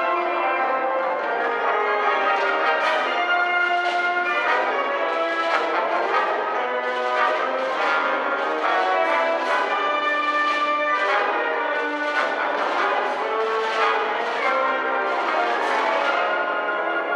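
Concert wind band playing: held brass and woodwind chords, with tubular chimes struck about once a second and ringing over them.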